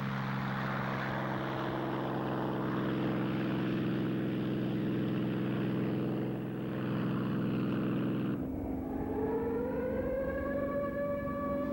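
Propeller aircraft engine drone, steady at first; about eight seconds in the sound breaks off abruptly and the engine note glides up and back down as the plane manoeuvres.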